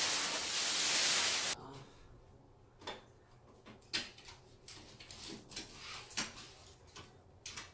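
Plastic bag crinkling loudly as it is pulled off a tower speaker, stopping abruptly about a second and a half in. After that it is quieter, with a few light knocks and taps as hands handle the speaker cabinet.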